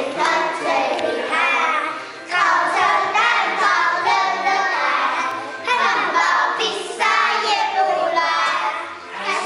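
A group of young children singing a children's song together in unison, in phrases of about three seconds with short breaks between them.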